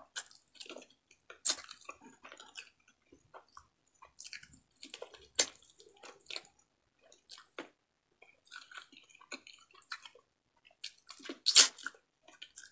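Close-miked wet chewing and lip smacks of someone eating frog meat by hand, a string of short irregular clicks with a louder smack near the end.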